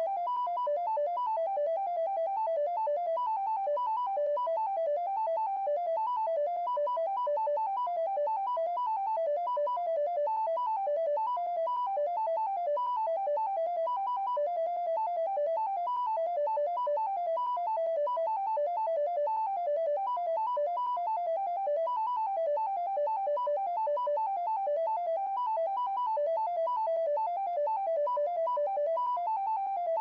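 Rapid stream of short electronic beeps hopping among a handful of pitches. Each beep is a tone that a phone app generates from the next prime number taken modulo 7.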